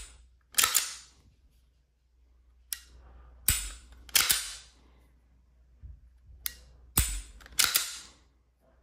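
Daniel Defense H9 9mm pistol being hand-cycled and dry-fired to show the trigger reset: about seven sharp metallic clacks from the slide being racked and released and the trigger breaking.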